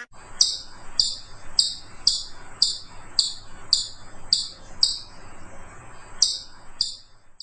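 A bird calling repeatedly, about twice a second. Each call is a short high note that falls in pitch. The calls pause briefly near the end, then two more follow.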